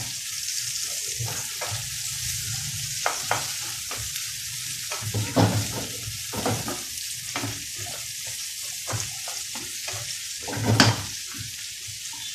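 Sliced onion and chopped garlic sizzling in butter and olive oil in a frying pan, with a spatula scraping and knocking against the pan as it is stirred; the loudest knock comes near the end.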